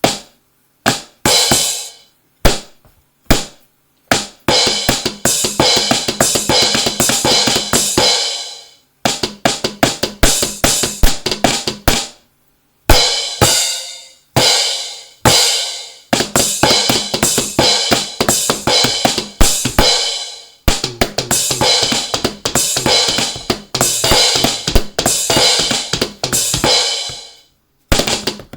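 Electronic drum kit played with sticks: a few single hits, then fast fills of snare, bass drum and cymbal sounds in stretches of several seconds, broken by short pauses.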